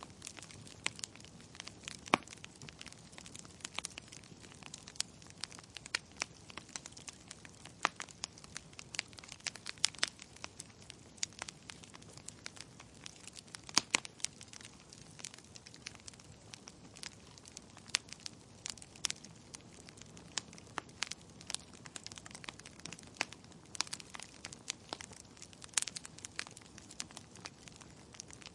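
Wood fire burning in a fireplace: irregular sharp crackles and pops of the burning logs over a low steady hiss, with the loudest pops about two seconds in and near the middle.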